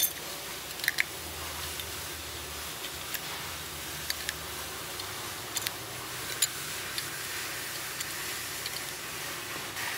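Light clicks and clinks of friction and steel clutch plates as they are slid one by one onto the splined hub of a gearbox clutch pack. The clicks come at irregular moments over a steady background hiss.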